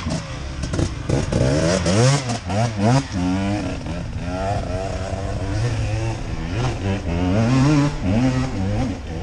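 Dirt bike engine revving under load on a steep hill climb, its pitch rising and falling over and over as the throttle is worked.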